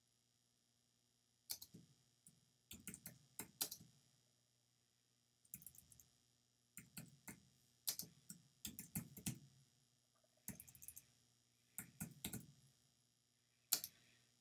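Computer keyboard typing in short runs of keystrokes with pauses between them, with one sharper single key click near the end.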